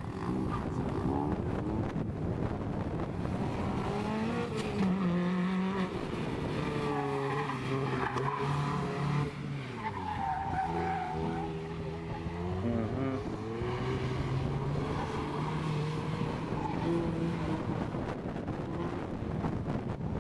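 2002 Acura RSX Type-S with its 2.0-litre K20 four-cylinder engine running an autocross course: the engine revs climb and drop again and again as the car accelerates and lifts between the cones, with a brief tire squeal in a turn about ten seconds in.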